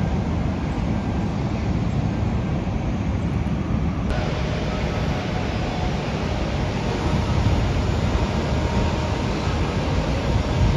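Low, steady rumble of jet aircraft at the airport, mixed with wind on the microphone. About four seconds in the sound changes abruptly and a faint, steady engine whine joins the rumble.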